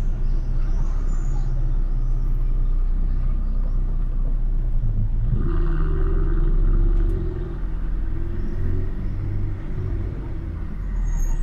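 Car engines and road noise in slow city traffic heard from a moving car, over a steady low rumble. About halfway through, an engine note swells, then eases off a couple of seconds later.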